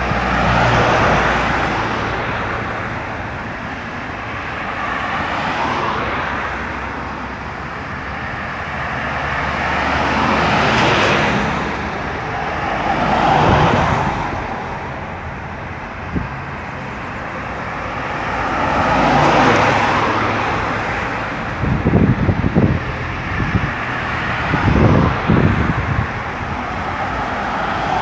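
Road traffic on a busy highway: cars going by one after another, each one's noise swelling and fading, about five passes. Near the end a low engine rumble comes and goes unevenly.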